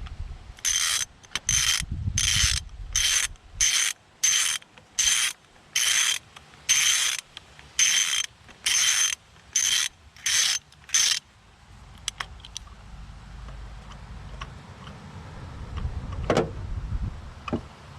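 Socket ratchet clicking in about fifteen short back-strokes as a new spark plug is tightened into the engine's aluminium head, then the ratcheting stops; a single knock follows near the end.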